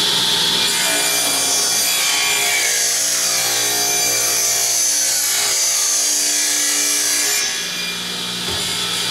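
Table saw ripping a board: the spinning blade cuts along its length with a steady hiss from about a second in. Near the end the board clears the blade, and the saw keeps running with no load.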